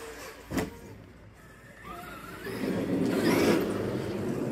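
Traxxas X-Maxx RC monster truck driving: its brushless electric drive gives a short rising whine about two seconds in, then a louder rushing noise for about two seconds that fades near the end.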